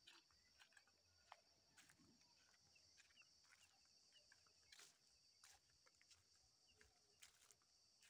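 Near silence: faint, irregular crunching of footsteps on dry leaf litter under a faint steady high-pitched hum.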